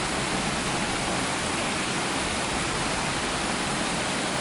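Steady rush of fast-flowing floodwater, an even loud roar with no breaks.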